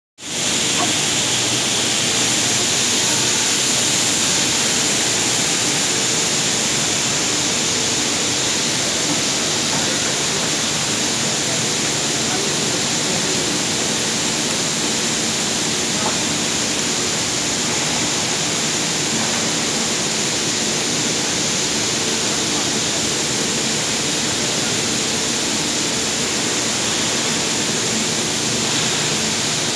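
Steady hiss of water spraying inside a heavy-component cleaning (industrial parts-washing) machine.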